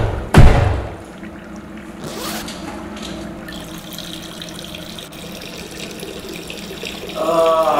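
A loud bang, like a restroom door shutting, right at the start, then a steady stream of running water. Near the end a drawn-out voice comes in, falling in pitch.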